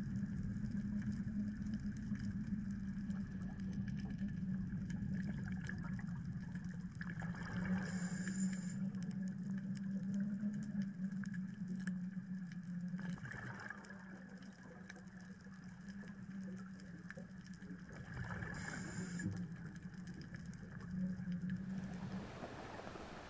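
Underwater sound of a scuba diver breathing through a regulator: a burst of exhaled bubbles about every five seconds, over a steady low hum.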